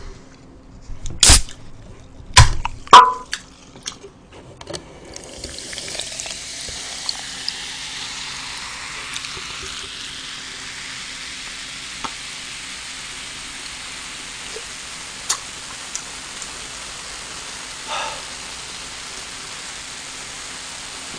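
Cola being poured from a can into a plastic cup, fizzing with a steady hiss as the carbonated drink foams up. A few sharp clicks and knocks come in the first few seconds as the can and cup are handled.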